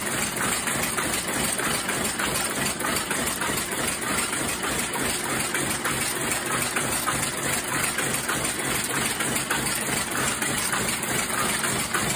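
Swiss-made Sulzer projectile weaving loom running steadily, a fast, even mechanical clatter as it weaves cloth.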